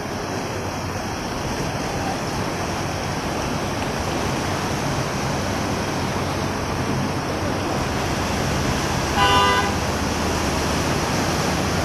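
Steady hiss of rain, with a vehicle horn sounding once briefly about nine seconds in.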